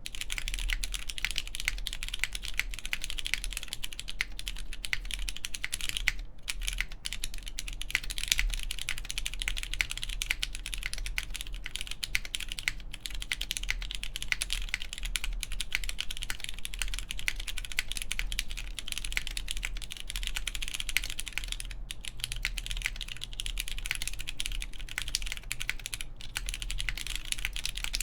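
Continuous fast typing on a plateless mechanical keyboard with lubed Cherry MX Brown tactile switches and GMK keycaps: a dense run of keystroke clacks with only brief pauses, about six seconds in and around 22 and 26 seconds.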